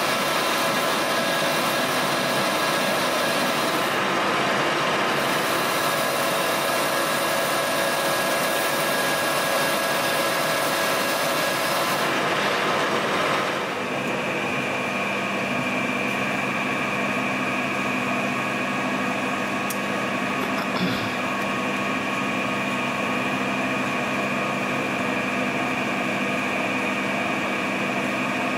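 Colchester Master 2500 geared-head lathe running steadily while turning a taper on a metal workpiece. About halfway through the sound changes, and a steady high whine stands out over the running machine.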